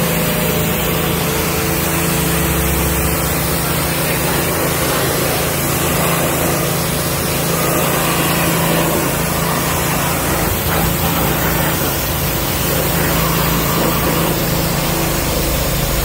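AiPower high-pressure washer running steadily: the pump motor's hum under the loud, even hiss of the water jet spraying onto a scooter's panels and wheel.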